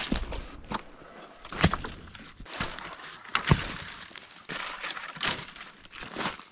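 Footsteps on riverbank gravel and stones, a knock or crunch underfoot about once a second.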